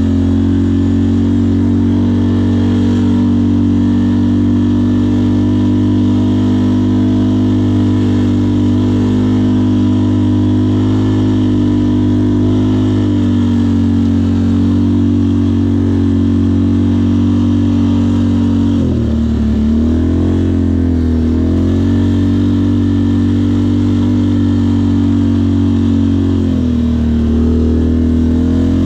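Off-road vehicle's engine running at steady revs under way, with the revs dropping and picking back up about two-thirds of the way through and again near the end.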